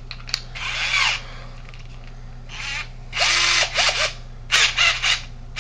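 Handheld power drill run in several short trigger bursts, its motor whirring up and dying away each time, as used to spin a 12-gauge roll-crimp bit.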